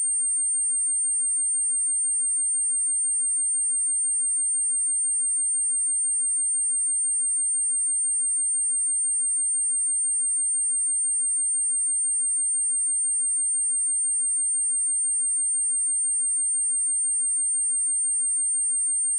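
A steady pure sine tone at 8702 Hz, a high-pitched whine held at one constant pitch and level: a speaker test and cleaning tone.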